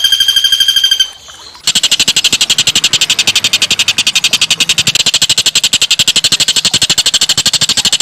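Recorded small songbird trilling: a fast, even trill at one pitch that breaks off about a second in. After a short pause comes a long, rapid, harsh rattling trill, pulsing about a dozen times a second at high pitch.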